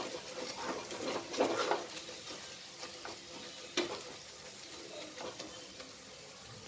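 Wooden spatula stirring and scraping a frying onion and spice masala in a pressure cooker pot, the mixture sizzling softly on medium heat. Irregular scrapes, with a sharper knock of the spatula against the pot about four seconds in.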